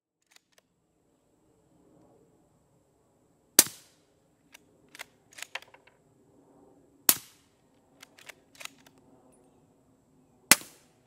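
Three suppressed rifle shots from a bolt-action rifle fitted with a 3D-printed titanium PWS BDE 7.62 suppressor, about three and a half seconds apart. Between shots, a run of metallic clicks as the bolt is worked to chamber the next round.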